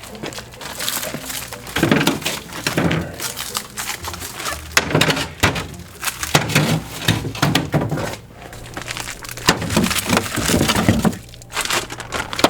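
Frozen, plastic-wrapped packages of meat knocking together and their wrapping crackling as they are handled, a run of irregular clacks and crunches.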